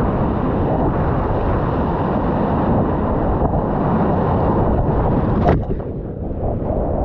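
Surf and rushing water around a kayak in breaking waves, with wind buffeting the microphone. About five and a half seconds in, a sharp splash as the breaking wave hits the boat, which then rides the foaming whitewater.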